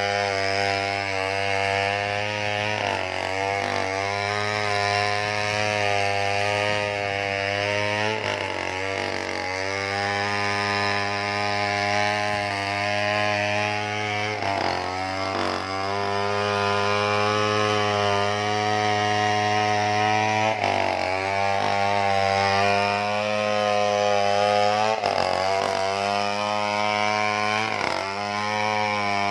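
Stihl 070 two-stroke chainsaw running hard, its engine pitch sagging briefly every few seconds as the chain bites into the wood, then recovering.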